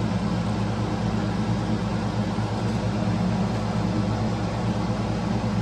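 A steady low mechanical hum with an even background hiss that holds unchanged throughout, typical of a fan or similar machine running in the shop.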